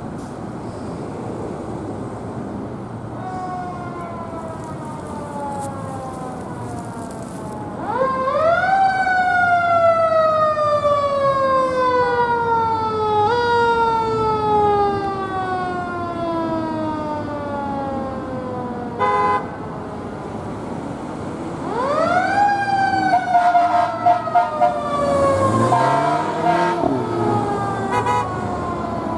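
A fire engine's siren winds up quickly about eight seconds in, then winds down slowly over several seconds, with a brief push back up partway through. It winds up again about twenty-two seconds in. A short blast sounds about nineteen seconds in, over the steady noise of traffic.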